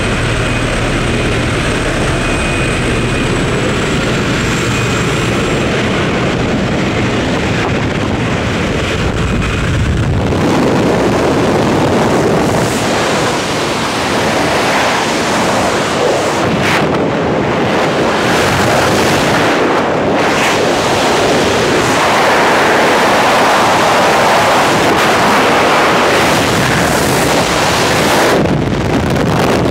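Steady drone of a jump plane's engine with wind at the open door. About ten seconds in it gives way suddenly to loud wind rushing over the microphone in freefall.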